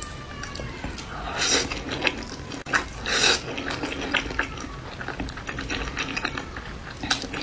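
Close-miked eating of spicy noodles: two long, loud slurps of noodle strands about one and a half and three seconds in, with wet chewing and mouth clicks throughout.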